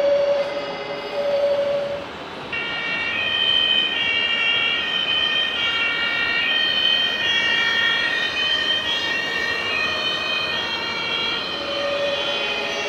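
Two-tone siren from an RC fire truck's sound module, alternating back and forth between two high pitches, over steady hall noise. For the first two seconds and again near the end a lower tone cuts in and out instead.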